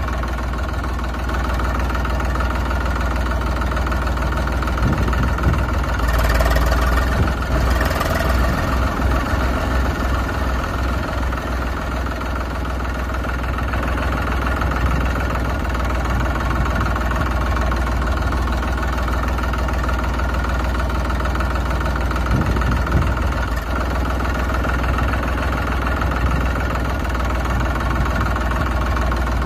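Tractor engine running steadily, with a deep low rumble underneath.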